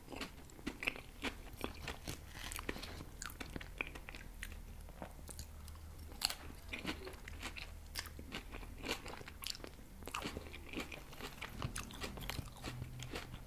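Close-miked chewing of a mouthful of raw lettuce and red cabbage salad, with many short, crisp crunches coming irregularly throughout.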